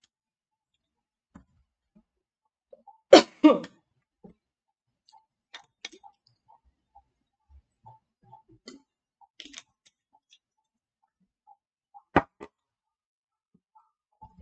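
Quiet room broken by scattered faint clicks and taps. A short, louder noise comes in two quick parts about three seconds in, and a single sharp click about twelve seconds in.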